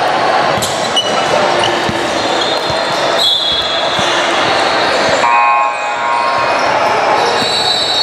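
Basketball game sounds in a gym: a ball bouncing on the court, with players' and spectators' voices echoing around the hall.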